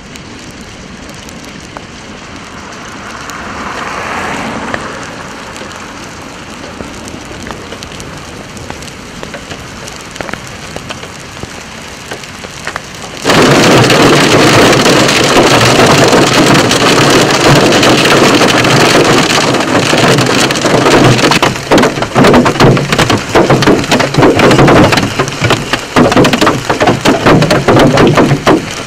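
Hailstones falling and striking the ground in a steady patter. About 13 seconds in, after a cut, it turns much louder: heavy hail pounding down, dense and continuous, with many sharp close impacts.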